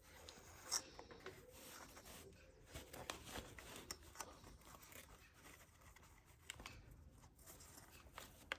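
Near silence with faint rustles and light clicks: hands working the new cord on a leaf blower's recoil starter, tying a knot in it.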